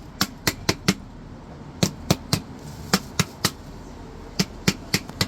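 Repeated sharp taps on a container of potato soil, struck in quick groups of three or four, about fourteen in all, to knock the packed soil loose so it falls out.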